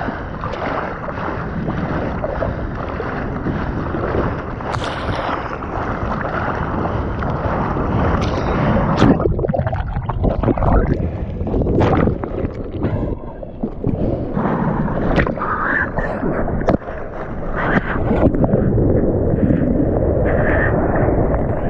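Sea water rushing and splashing around a surfboard and its action camera in the surf, with scattered sharp splashes and wind on the microphone. The sound goes duller for a few seconds in the middle, while water covers the camera.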